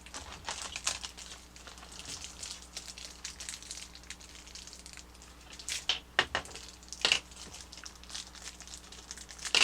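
Toy-kit packaging being handled: plastic parts bags and paper instructions crinkling and rustling, with a few louder sharp crinkles in the second half.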